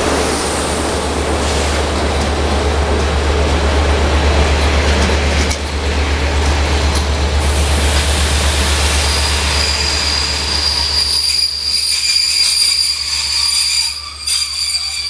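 Passenger coaches rolling slowly past along a station track, their wheels giving a continuous rumble. About nine seconds in, a high, steady squeal of braked wheels sets in and the rumble fades as the train slows to a stop.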